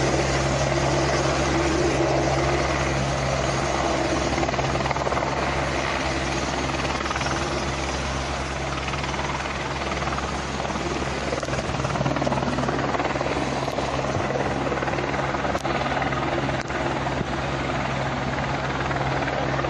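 Helicopter running steadily: a continuous deep hum of rotor and engine with an even rushing noise over it.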